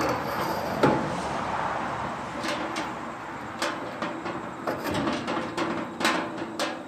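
Metal clunks and knocks from a home-built swing-away toolbox frame being swung and worked on its steel pole pivot, about eight knocks spread over several seconds, the loudest about a second in and near the end.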